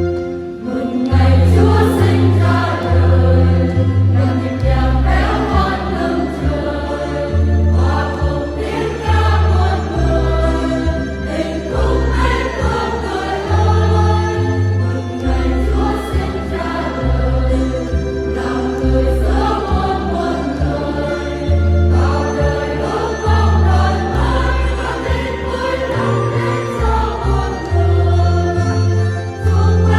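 Church choir singing a Vietnamese hymn with instrumental accompaniment and a steady bass line.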